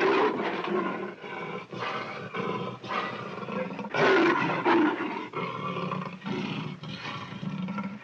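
Barbary lion roaring in one long run of rough calls, broken by many short gaps.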